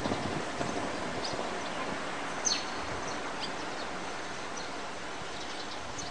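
A few short, high bird chirps, each a quick downward flick, spaced a second or so apart over a steady outdoor background hiss.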